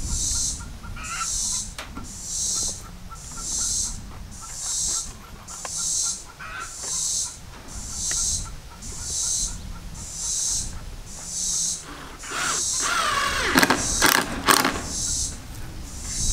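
Cordless drill driving a wood screw into wooden framing, one run of a few seconds near the end with the motor whining and changing pitch as it loads up. Under it, cicadas buzz in steady pulses, about one every three-quarters of a second.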